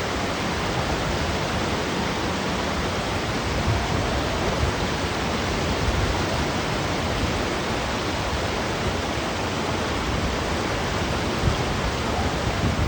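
Steady loud rush of whitewater on the Ganges rapids.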